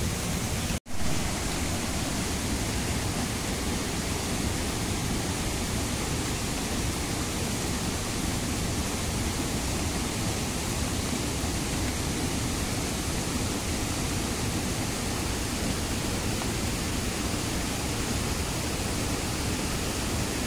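Steady rushing of a rain-swollen stream in monsoon flood.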